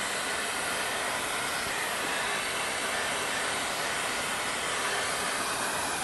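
Vacuum running steadily, its nozzle sucking up rubber buffing dust from inside a tire; an even, unchanging noise.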